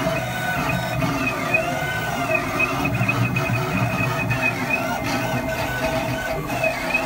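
Stepper motors of a small CNC router driving the X and Y axes through a program, their whine rising and falling in pitch about once a second as the axes speed up and slow down. A steady hum runs underneath.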